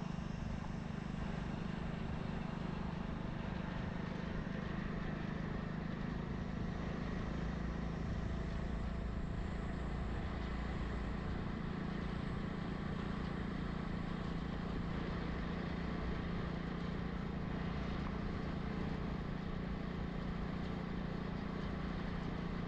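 Steady low hum of a running vehicle engine under even road noise while riding along.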